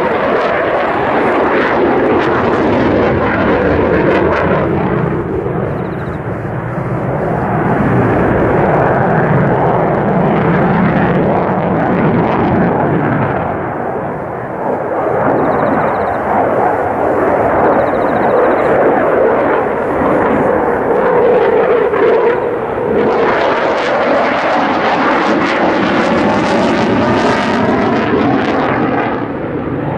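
Loud, continuous jet noise from a JASDF F-15J fighter's twin turbofan engines in afterburner as it manoeuvres. In the last several seconds the roar grows brighter and sharper, with sweeping tones running through it.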